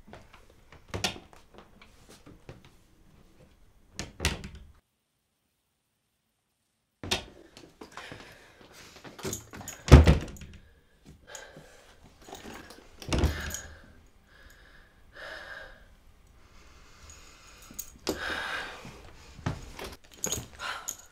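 Door and keys sounds in a small room: keys jangling, a door handled and shut, and several dull thuds, the loudest about ten seconds in. The sound cuts out completely for about two seconds, about five seconds in.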